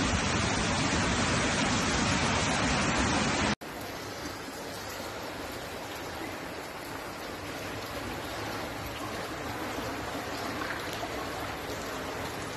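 Muddy floodwater rushing down a flooded street as a steady, even rush of water. About three and a half seconds in, it cuts off suddenly and is followed by a quieter, steady rush of floodwater from another street.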